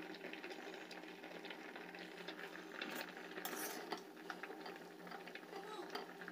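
Water at a rolling boil in an aluminium kadai of whole tomatoes, a faint steady bubbling crackle. A metal spatula turns the tomatoes partway through, adding a few light ticks.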